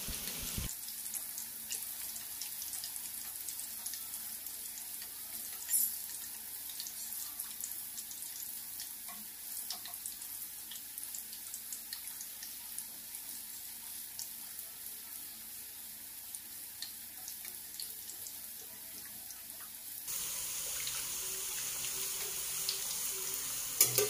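Peanut rice-flour crackers (peyek) deep-frying in hot oil in a wok, a steady sizzle with fine crackling as a spatula splashes oil over them. A single brief knock about six seconds in.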